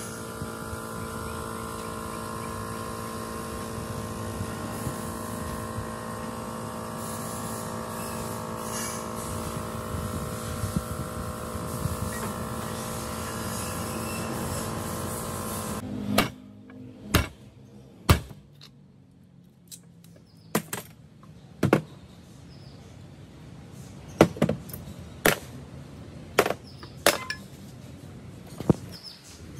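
A machine runs with a steady hum of several fixed tones, then cuts off abruptly about sixteen seconds in. It is followed by a string of sharp, separate knocks and taps of hand tools on a workpiece, spaced about a second or more apart.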